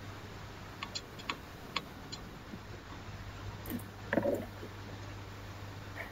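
A few faint clicks about a second in, then a short muffled knock a little after four seconds, over a low steady hum.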